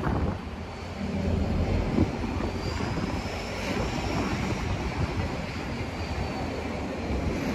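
Steady engine and road rumble of a moving double-decker tour bus, heard in the open air of its open top deck, with street traffic around it.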